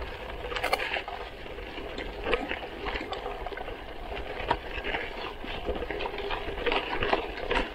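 Gravel bike tyres crunching and crackling over loose gravel and rocks on a climb, with frequent irregular sharp clicks and rattles from the bike.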